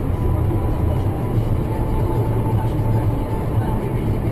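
Steady low rumble of a moving vehicle: engine and road noise.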